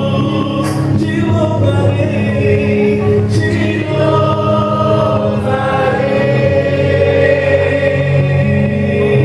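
Gospel worship song: several voices singing together in long held notes over steady instrumental accompaniment.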